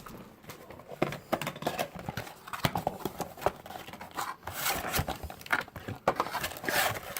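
Handling of a cardboard trading-card blaster box and its foil card packs: irregular taps, knocks and crinkling as the packs are pulled out of the box.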